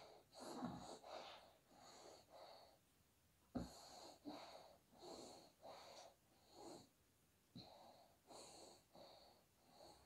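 A child breathing hard in and out under a towel while inhaling steam: faint quick puffs, about two a second, in three runs with short pauses between them.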